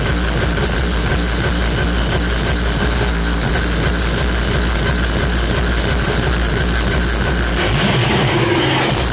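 Loud hardcore techno over a PA, with a fast, heavily distorted kick drum pounding at an even pace. The kick drops out for about a second near the end, then comes back in.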